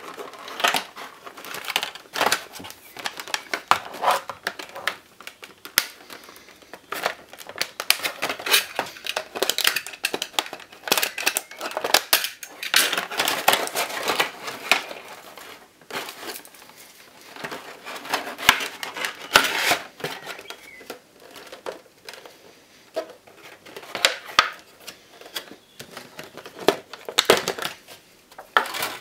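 Clear plastic blister packaging crinkling and crackling as it is handled and pried apart by hand to free a plastic airliner model. The crackles come irregularly, busiest through the middle and again near the end, with quieter gaps between.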